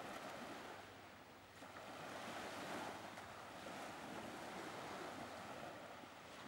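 Faint sea surf: a soft, steady wash of waves on a shore that eases a little about a second in and then swells again.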